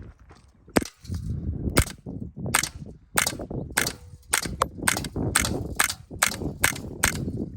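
A suppressed .22LR AR-15 fitted with a CMMG .22 conversion kit fires about a dozen quick semi-automatic shots, roughly two a second. Each shot is a short, quiet crack, and the clack of the bolt cycling is louder than the report.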